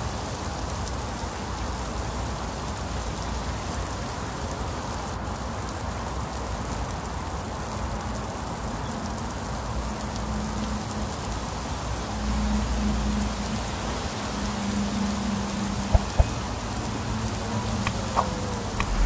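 Steady heavy rain falling on a concrete lane and banana leaves. A low rumble swells around the middle, and two short sharp knocks come near the end.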